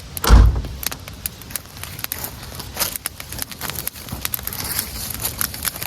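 Wood campfire crackling, with many irregular sharp snaps and pops and a dull thump about a third of a second in.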